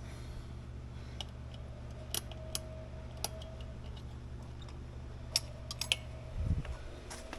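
Keys and a door lock being handled: scattered sharp metallic clicks and taps, a few in quick succession near the end, over a steady low hum.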